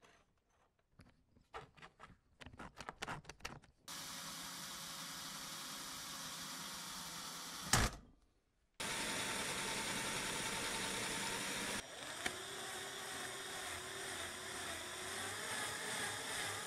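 Light clicks and knocks as aluminium bars are handled, then a power tool running steadily for about four seconds, ending in one sharp knock. After a short pause, an electric drill runs and bores into a small aluminium block, its pitch wavering under load over the last few seconds.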